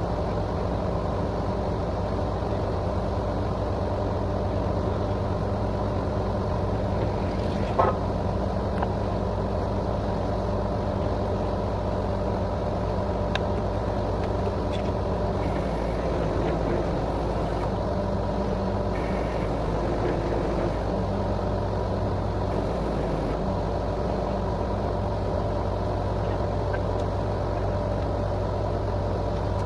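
Truck-mounted borewell drilling rig running steadily, a constant engine drone with one sharp knock about eight seconds in.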